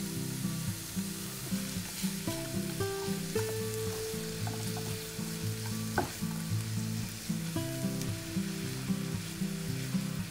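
Diced onions sizzling in melted butter in a nonstick frying pan, stirred and scraped with a silicone spatula, with a sharp click about six seconds in. Soft background music of sustained notes plays under it.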